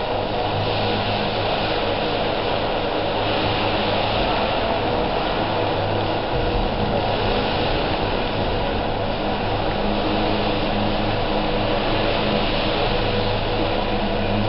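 Electric radio-controlled helicopter (Align T-Rex) in flight: a steady buzz of the spinning rotor blades and motor whine that swells and eases a little as it manoeuvres.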